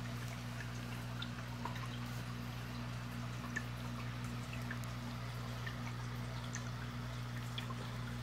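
Aquarium filter running: a steady low electric hum under trickling, splashing water, with scattered small drips and bubble pops throughout.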